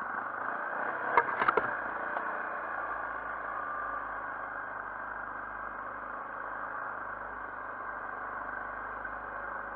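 Yamaha Grizzly 450 ATV's single-cylinder four-stroke engine running steadily at low speed, with a quick cluster of sharp knocks about a second in.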